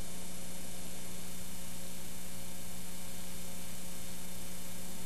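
Steady electrical hum with a constant hiss underneath, a single unchanging low tone: the live rig or the old recording humming before the song starts.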